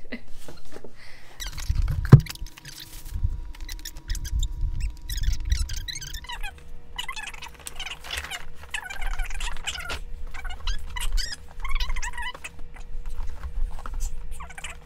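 Stiff paper shopping bag rustling and crinkling as a boxed item is handled and lifted out of it, with one sharp thump about two seconds in.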